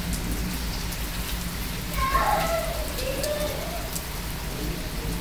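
Rain falling steadily on a wet paved courtyard and rooftops, with individual drops ticking close by over a low, steady rumble.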